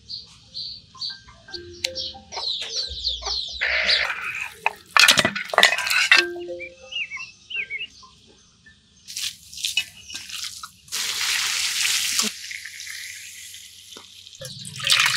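A run of short cooking sounds: water pouring and splashing into a pot, scattered knocks and scrapes, and birds chirping in the first few seconds.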